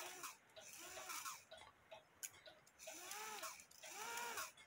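Cuckoo clock movement ticking softly, about once a second, with its rack dropped behind the snail.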